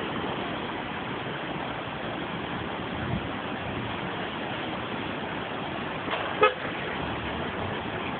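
Steady rush of a muddy river in flood, running high after heavy rain. A car horn toots briefly about six and a half seconds in.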